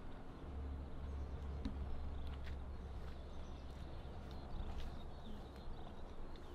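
Quiet lakeside outdoor ambience: a steady low rumble with a faint buzzing hum and a few small, irregular ticks, as rod and reel are handled.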